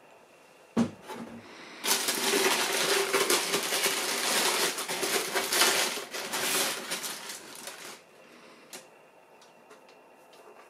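Tissue paper in a cardboard shoebox rustling and crinkling as hands rummage through it, for about six seconds, after a short knock about a second in.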